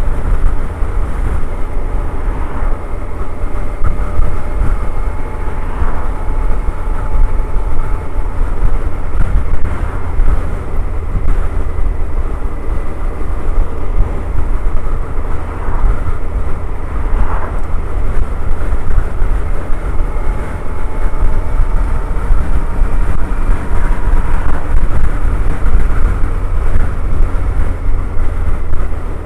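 Suzuki Hayabusa inline-four running at a steady cruise, its engine drone mixed with heavy low wind noise on the microphone. Faint tones drift slightly in pitch now and then.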